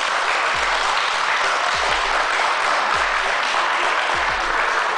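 A small group of people applauding steadily, welcoming a guest who has just been introduced.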